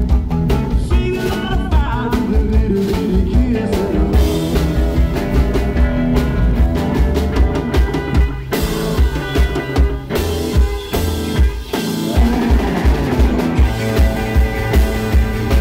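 Live rock and roll band playing loud, with electric guitar and a drum kit keeping a steady driving beat. The bass and drums drop away briefly about eleven seconds in, then come back.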